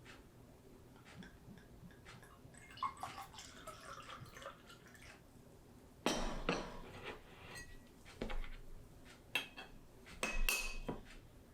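Glassware and dishes clinking: a patter of small clicks, then four sharp clinks over the second half, a couple ringing briefly like a struck glass.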